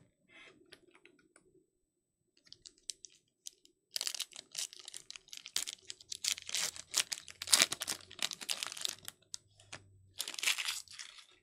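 Foil wrapper of a Topps Allen & Ginter Chrome card pack crinkling and tearing as it is ripped open by hand. Faint at first, then a dense run of sharp crackles from about four seconds in, and another short burst of crinkling near the end as the cards are slid out.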